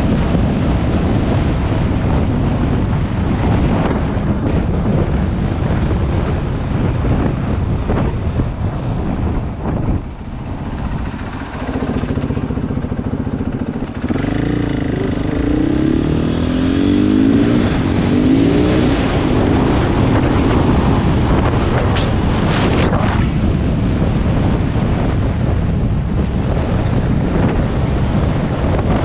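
KTM 500 EXC single-cylinder four-stroke motorcycle engine running under way, buried in heavy wind noise on the microphone. The engine pitch rises and falls through the middle, and the sound eases briefly about ten seconds in.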